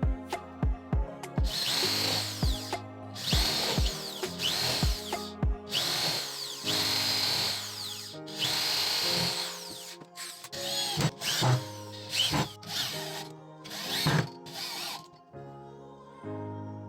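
Handheld power drill running in repeated short bursts, its motor whine rising and falling each time it speeds up and slows down, over background music.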